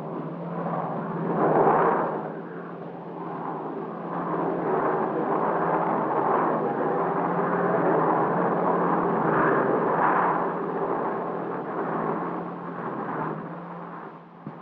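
Aircraft engines running at an airport apron: a steady drone with a rushing noise that swells and eases several times.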